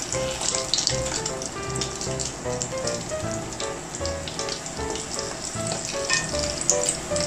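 Flour- and egg-coated chicken thigh pieces deep-frying in hot oil: a steady, dense crackling sizzle. Light background music plays underneath.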